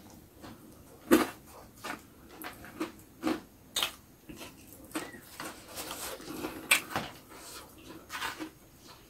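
Close-miked eating sounds of a person eating with his hands: irregular wet lip smacks, chewing and sucking clicks, the sharpest about a second in and again near seven seconds.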